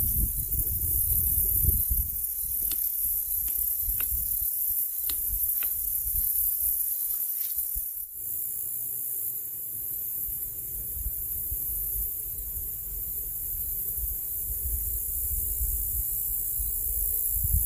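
Outdoor lakeside ambience: a low rumble of wind on the microphone under a steady high hiss, with a few faint short clicks in the first half. The ambience changes abruptly about eight seconds in.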